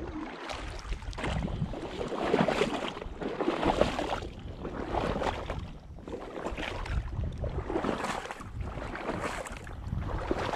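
Paddle strokes moving a canoe through marsh water, a swishing stroke about every second and a half, with wind noise on the microphone underneath.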